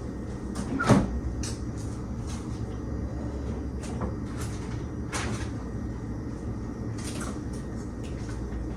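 A sharp knock about a second in and several lighter clicks and knocks, like household things being handled, over a steady low hum.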